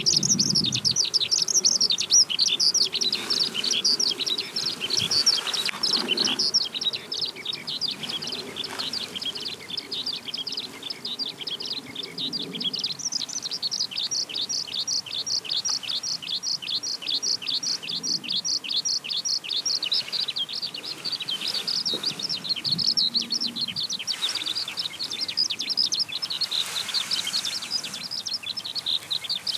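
Eurasian skylark singing its long, unbroken song, a fast run of high warbling and trilled notes. Through the middle it settles into a stretch of rapid, evenly repeated notes before returning to varied warbling.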